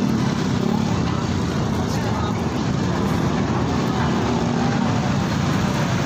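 Motor vehicle running steadily, with road noise and people talking over it.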